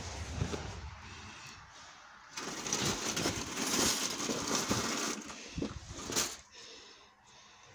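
Rattling and scraping of a wire-mesh cage trap being handled, a dense clatter of small clicks loudest from about two and a half to six seconds in, with rumbling from the phone being moved.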